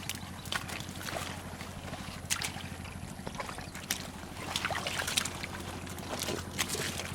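Shallow water splashing and sloshing in irregular sharp splashes, over a steady low hum.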